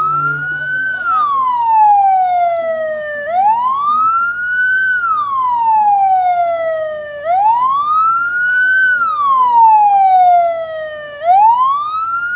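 Ambulance siren wailing, each cycle rising quickly and then falling slowly, repeating about every four seconds.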